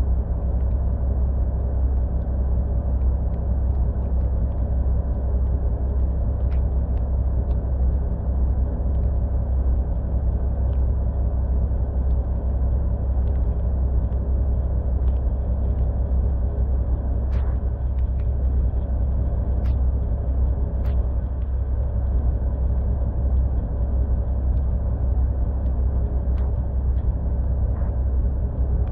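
A dump truck's diesel engine idling with the rig standing still, a steady low rumble, with a few faint ticks in the middle.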